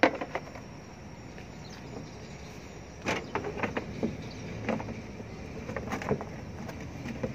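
Truck battery box cover being closed: a sharp knock as the lid is set down, then a run of knocks and rattles a few seconds later as the ribbed cover is pushed and fitted over the batteries. A steady low hum runs underneath.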